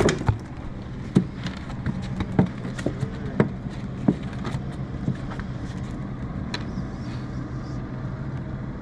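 A steady low motor hum, with several sharp knocks in the first four seconds or so.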